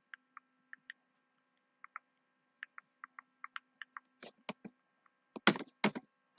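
Soft, irregular clicks of a computer mouse, a few a second, with a louder cluster of clicks near the end.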